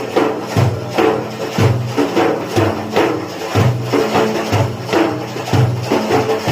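Frame drums with jingles playing a steady rhythm, a deep stroke about once a second with lighter strokes between, accompanying a Sufi praise chant in a pause between sung lines.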